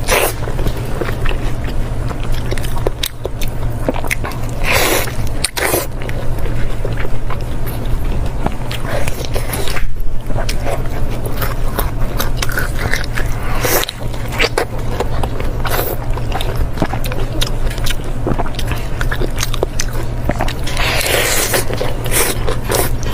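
Close-miked eating of fatty meat: biting and chewing with many wet clicks and a few louder bursts, over a steady low hum.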